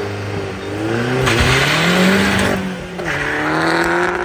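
Tuned Opel Corsa OPC Nürburgring edition's turbocharged 1.6-litre four-cylinder accelerating hard. The engine revs up, drops in pitch at a gear change about two and a half seconds in, then revs up again.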